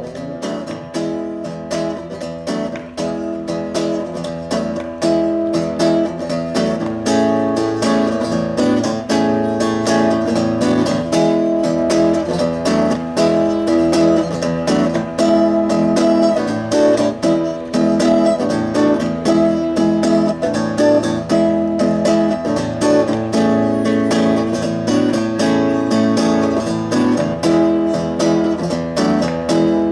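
Amplified acoustic guitar strummed in a steady rhythm: an instrumental break between sung verses of a pop-rock song.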